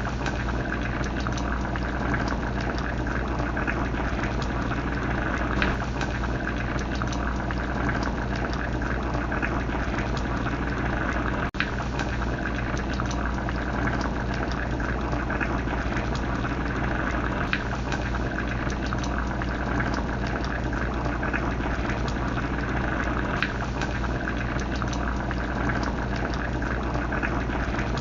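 Pot of crab rasam boiling, bubbling steadily with scattered small pops, over a steady low hum.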